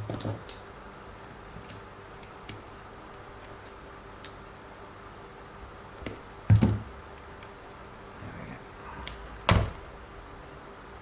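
Light clicks and taps of small plastic RC car parts being handled while a suspension arm's hinge pin is fitted, with two louder knocks, one past the middle and one near the end.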